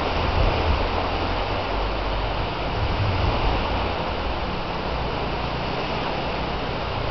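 Wind buffeting the microphone in a steady, heavy rumble, over the wash of small waves breaking on the shore.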